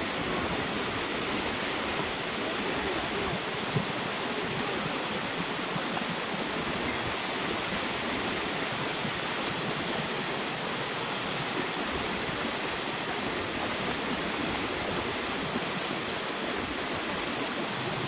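A partly frozen waterfall, its water still falling through the ice and splashing below, makes a steady, even rushing. One brief click comes a few seconds in.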